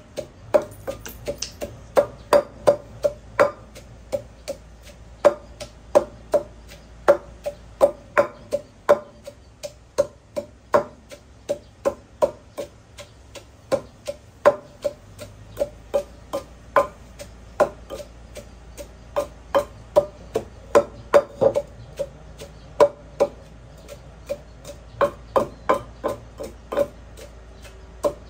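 Wooden pestle pounding in an earthenware mortar, the Thai krok-and-sak: a steady run of hard knocks, about two a second, each with a short hollow ring.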